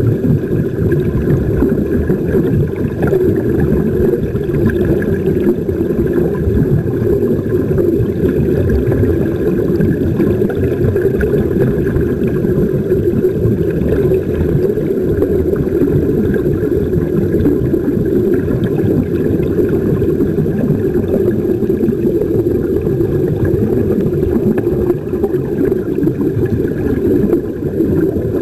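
Steady, muffled underwater noise, mostly low rumble, with air bubbling from the surface-fed sea-walk helmets.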